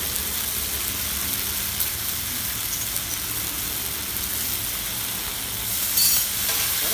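Butter and ginger-garlic paste sizzling on a large flat iron tawa, with a sudden louder hiss about six seconds in as water is squirted from a bottle onto the hot plate and flashes to steam.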